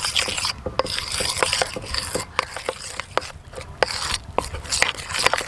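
Metal spoon stirring gram flour and tamarind pulp into a thick batter in a stainless steel bowl, with irregular clicks and scrapes of the spoon against the steel.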